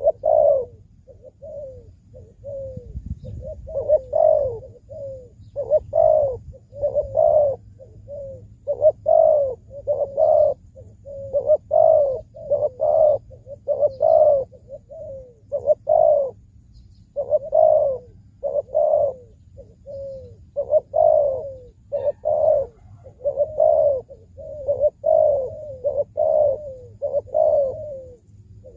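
Decoy spotted dove cooing over and over: a long run of short coos, about one a second in phrases, each dropping in pitch.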